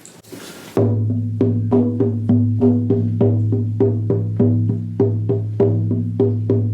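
An 18-inch buffalo skin hand drum struck with a firm beater, starting just under a second in and keeping a steady beat of about three strokes a second. Each stroke is a low, ringing boom that carries on between beats.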